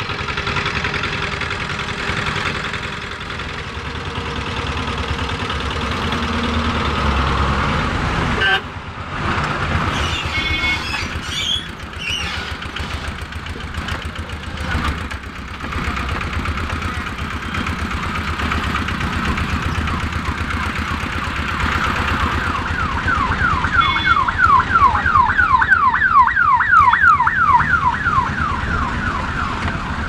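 Road traffic heard from inside a vehicle cab, with the engine running steadily and a few short horn toots about ten seconds in. From about two-thirds of the way through, a loud electronic siren or alarm wails in a fast rising sweep, about three sweeps a second, for around six seconds before it stops.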